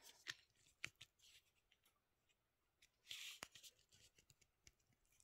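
Faint, scattered clicks and scrapes of a 9mm cartridge being pushed against a full 30-round Stribog magazine that will not take another round.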